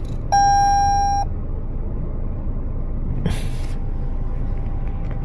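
The 2019 Toyota Corolla's 2.0-litre four-cylinder idles with a low steady rumble. Shortly after the start the instrument cluster gives a single warning chime, a steady high tone about a second long, as a check engine fault is shown. A brief rustle follows about three seconds in.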